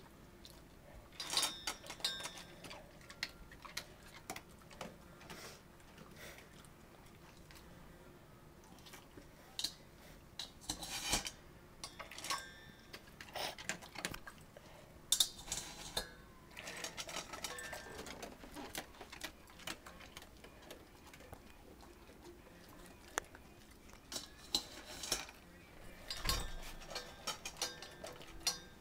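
Dog eating dry kibble from a stainless steel bowl: irregular crunching, with kibble clinking against the metal bowl in scattered bursts and quiet gaps between.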